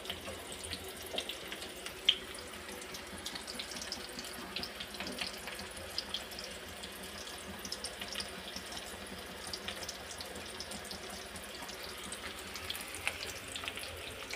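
Chopped onions frying in hot oil in a wok: a steady sizzle dotted with frequent small crackles.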